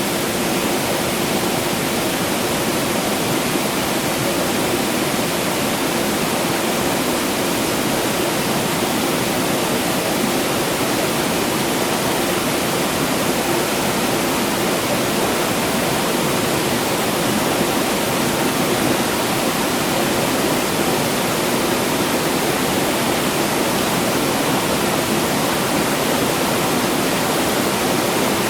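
Rushing water, a steady, dense, unbroken rush.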